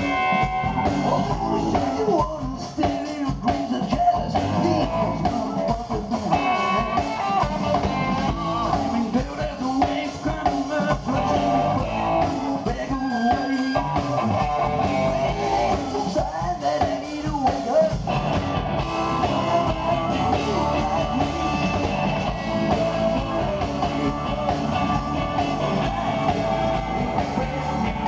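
Blues-rock band playing live through a PA: electric guitar, bass and drums at a steady loud level.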